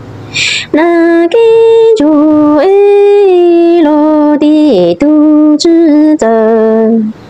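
A woman singing a Hmong lug txaj (kwv txhiaj), a sad sung lament, unaccompanied. She holds long notes that step and slide down in pitch, with short breathy hisses between phrases about half a second in and near the end.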